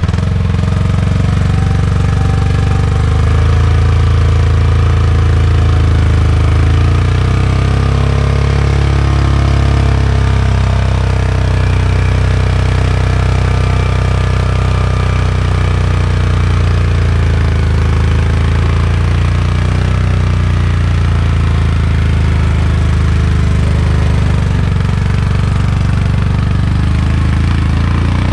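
Four-wheeler ATV engine running steadily, its pitch drifting slightly up and down without any big revs.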